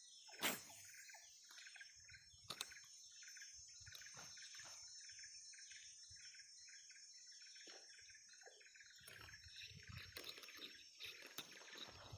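Faint marsh ambience: a steady high insect drone with scattered bird or insect chirps, and a sharp click about half a second in.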